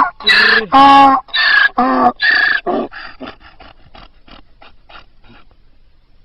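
Donkey braying: loud, pitched hee-haw notes about twice a second, trailing off after about three seconds into quicker, fainter breaths that die away.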